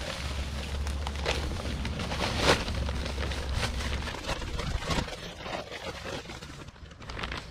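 Dry Type S mortar mix being emptied from its paper bag into a small mixing pan: rustling of the bag and the pouring mix, with a few knocks and a low rumble through the first half.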